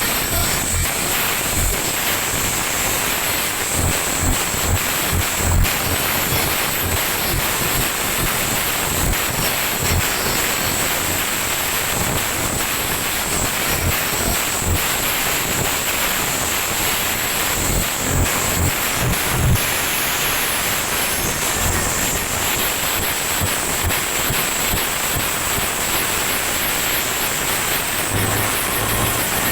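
Huge outdoor sound system rig played at extreme volume, picked up by the microphone as a heavily distorted, dense wash of noise. Irregular deep bass thumps come through underneath.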